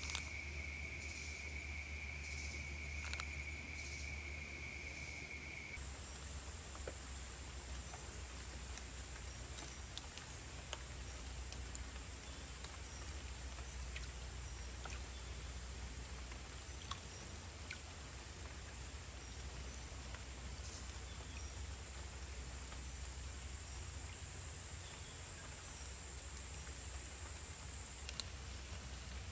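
Steady outdoor insect chorus: a continuous high buzz stops about six seconds in and is replaced by an even higher, continuous trill. Faint scattered taps and clicks come from a pan being handled in a water trough.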